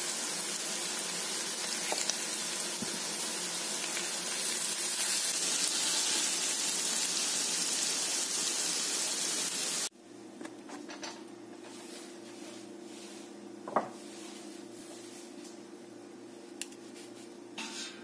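Seal meat and vegetables sizzling in a hot cast-iron skillet, with a few light chopstick taps. About ten seconds in the sizzle cuts off abruptly, and a much quieter steady hum follows with a few small clicks.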